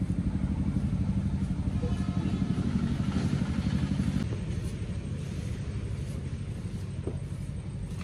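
A small engine running steadily with a fast, even throb, easing off a little about halfway through.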